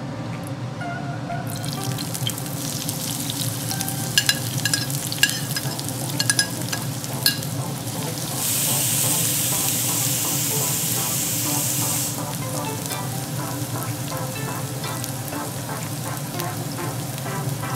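Sliced onions frying in hot oil and ghee in a nonstick pan: sharp crackling pops for a few seconds, then a loud sizzle for about four seconds while they are stirred with a spatula, settling back to a steady frying hiss.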